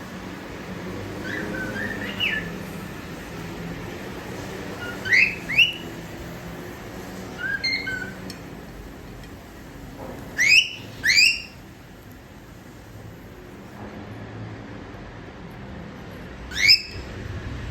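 Cockatiel whistling its song phrase: short upward-sliding whistles, some single and some in quick pairs, repeated every few seconds.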